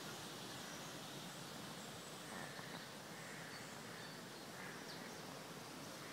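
Faint, steady outdoor hiss with a few short, faint bird chirps scattered through it.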